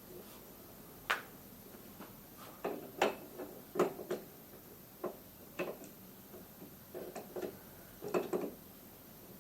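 Irregular light clicks and knocks, some single and some in quick clusters of two to four, from hand tools and metal parts being handled on a moped's front end.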